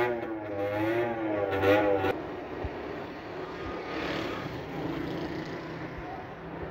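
Engine running, its pitch wavering up and down for about the first two seconds; then the sound cuts abruptly to a steadier, noisier engine sound.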